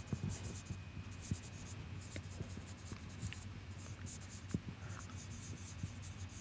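Marker pen scratching faintly on a whiteboard in short strokes as words are written, with brief pauses between strokes, over a low steady room hum.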